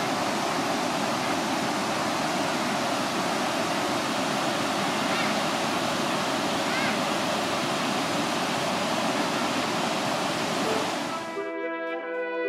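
Steady rush of river water pouring over a wide weir. About eleven seconds in it cuts off abruptly and music with brass instruments takes over.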